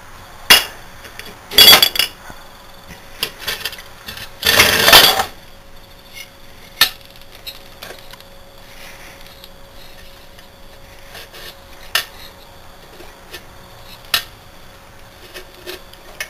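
Broken steel and aluminium parts of a Briggs & Stratton engine that threw its con rod, clinking and clattering as they are picked up, set down and knocked against the crankcase. There are sharp knocks near the start, a longer rattle about four and a half seconds in, and a few single clinks later on.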